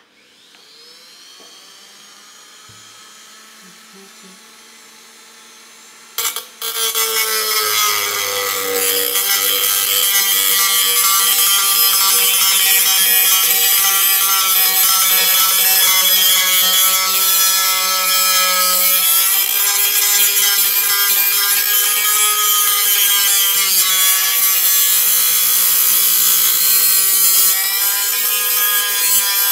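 Black+Decker RT18KA rotary tool switched on, its motor whine rising as it spins up to speed, then running freely. About six seconds in, its small cutoff disc bites into a tin can, and a loud, wavering metallic screech of the disc cutting the metal takes over.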